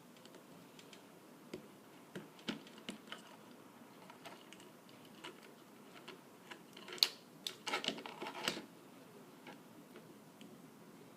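Light clicks and taps of small plastic and metal parts being handled as a 9-volt battery is fitted to the kit's battery clip, with a quick run of sharper clicks about seven to eight and a half seconds in.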